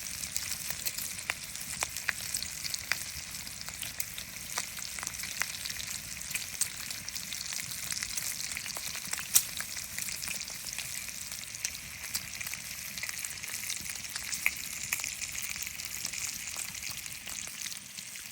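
Breakfast sizzling in a frying pan: a steady hiss with frequent small crackling pops, one louder pop about nine seconds in.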